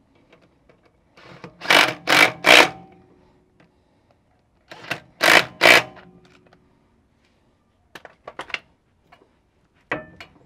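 Hammer blows on a steel steering knuckle, driving it home onto its kingpin bearings: two sets of three quick strikes about half a second apart, each with a short metallic ring, then a few light taps near the end.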